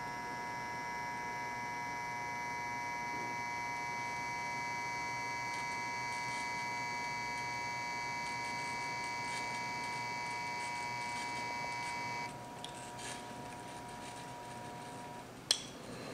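LED bulb giving off a steady high-pitched electronic whine made of several tones at once. About twelve seconds in the upper tones drop out and the lower ones carry on for about three seconds more, then a single sharp click.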